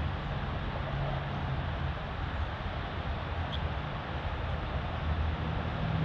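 Steady low rumble and hiss of distant road traffic.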